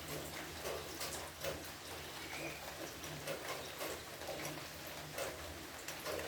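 Tabby cat lapping water from a bowl, a quick, regular run of soft wet laps.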